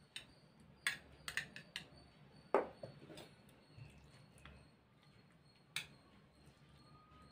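Faint scattered clinks and knocks of a spoon against a glass mixing bowl and small steel idli cups as thick sabudana-rava batter is scooped and spooned into the greased cups; the loudest knock comes about two and a half seconds in.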